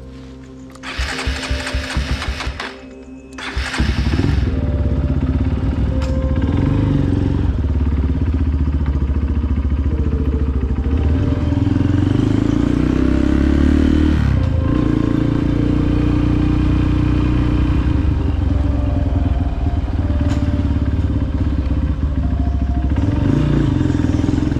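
Trail motorcycle's single-cylinder engine starting after two short bursts in the first few seconds, then running steadily under load as the bike rides off. Quiet background music plays underneath.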